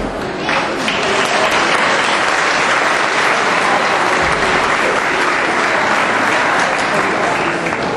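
Audience applauding steadily for several seconds. The clapping swells about half a second in.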